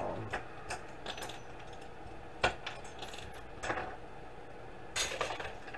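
Small metal parts of a DVD drive clicking and clinking as they are pried apart and handled by hand: a scattering of light, separate clicks, the sharpest about two and a half seconds in.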